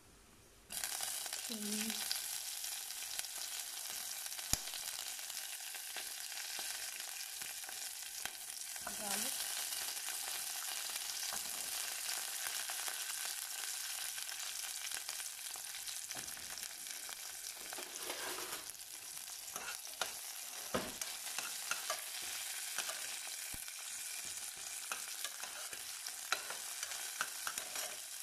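Cumin seeds, garlic cloves and green chillies sizzling in hot oil in a metal pressure-cooker pan. The sizzle starts suddenly about a second in and holds steady, with scattered clicks and scrapes of a steel spoon stirring in the second half.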